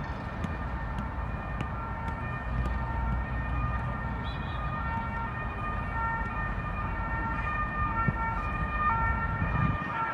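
Emergency-vehicle siren, steady tones stepping back and forth between two pitches, over a low rumble.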